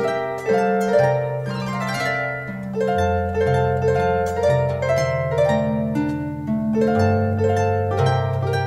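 Harp music: plucked notes in a gentle melody and chords over low bass notes, each note ringing on and fading.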